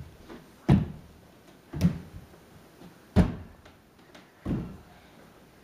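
A child's feet landing on a hardwood floor while jumping over a row of blocks: four thuds about a second and a quarter apart.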